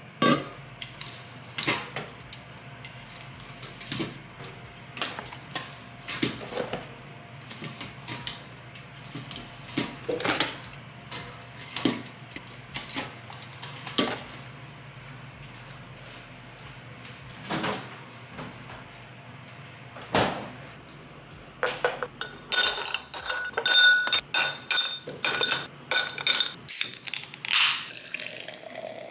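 Aluminium drink cans being set down on a countertop and knocking against each other, a sharp knock every second or two. About three-quarters of the way in comes a quick run of louder, ringing clinks, and near the end a drink is poured over ice in a glass.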